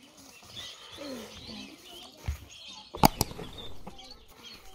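Birds chirping in the background, with a few sharp clicks: two close together about three seconds in and one near the end.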